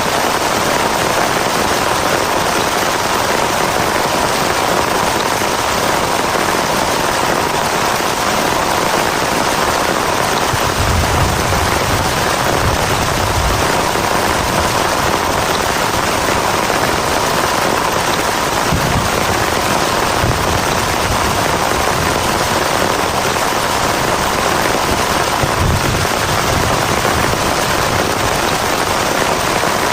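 Heavy rain drumming steadily and densely on a camping shelter, with a few short low rumbles along the way.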